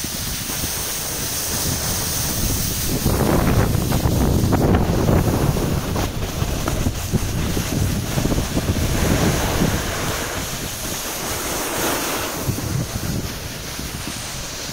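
Wind rushing over the microphone of a camera moving down a ski slope, mixed with the hiss and scrape of sliding over packed snow. The sound swells louder from about three to six seconds in, with smaller swells later.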